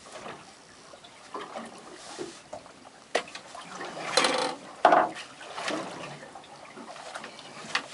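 Irregular knocks, rustles and short splashy water sounds as a freshly caught cod is handled on the deck of a small boat, with a sharp knock about halfway through.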